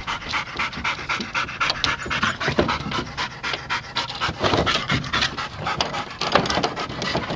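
Yellow Labrador Retrievers panting hard in quick, rapid breaths while they tussle, with many short sharp noises mixed in.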